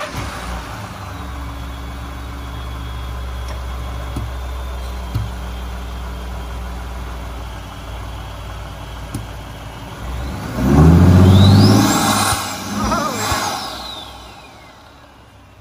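Twin-turbo 3.5-litre EcoBoost V6 of a Ford F-150, fitted with an aFe Magnum Force cold air intake, idling steadily, then revved twice, about eleven and thirteen seconds in. A high whistle rises and falls with each rev before the engine settles back to idle.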